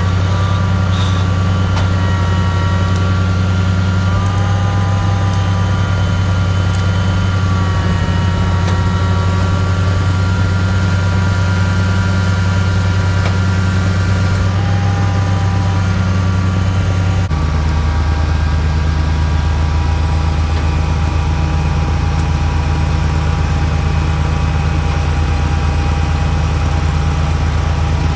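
Truck engine running steadily to power a Palfinger PK33002 knuckleboom crane's hydraulics, with several thin high whining tones that shift in pitch as the crane works. About 17 seconds in, the engine note steps down lower.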